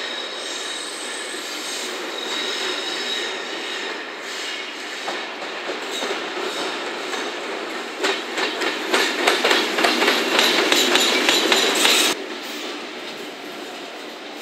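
EF65 electric locomotive running light over station pointwork: steel wheels squealing with a thin high whine on the curves, then a louder clatter of wheels over rail joints and points for about four seconds that cuts off suddenly, leaving quieter rolling noise.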